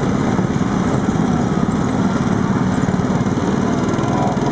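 Small gasoline engine of a Shriner miniature parade truck running steadily as it drives close past, a fast, even buzz like a lawn mower.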